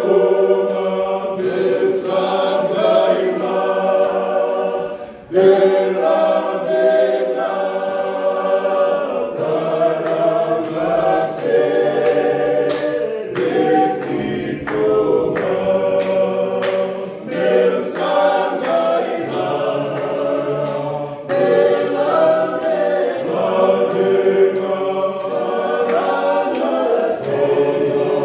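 Small choir singing a Fijian hymn a cappella, unaccompanied voices in harmony. There is a brief pause about five seconds in before they come back in together.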